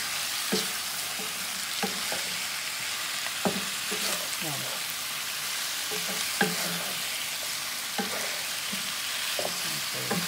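Chicken wings frying in a pot with a steady sizzle while a wooden spatula stirs them, scraping and knocking against the pot every second or two.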